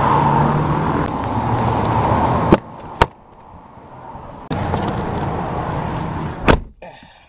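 A vehicle engine idles outdoors, then a pickup truck's door latches and slams shut twice, cutting the outside noise to near quiet each time: once about two and a half seconds in, with a second knock half a second later, and again about six and a half seconds in.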